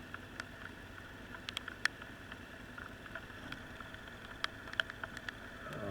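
A vehicle engine running steadily at idle, with scattered sharp ticks and a brief low swell near the end.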